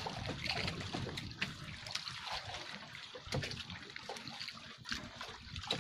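Sea water splashing and trickling at the side of an outrigger fishing boat as a wet fishing net is hauled in by hand, with scattered small knocks.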